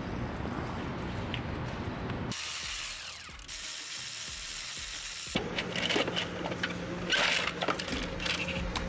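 Ratchet wrench clicking as it works the valve-cover bolts on a BMW diesel engine, in several short spells.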